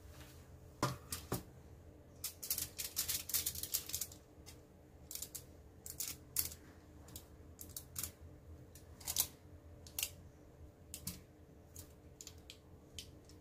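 Aluminium foil lining a baking tray crinkling and crackling in irregular clicks as the tray and the shaped bread dough are handled, densest about two to four seconds in. A faint steady low hum runs underneath.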